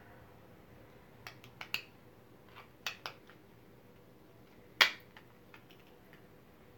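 Sharp plastic clicks and snaps, about eight of them and irregular, from 3D-printed support material cracking and popping free of a printed speaker wall plate as it is worked out by hand; the loudest snap comes a little before five seconds in.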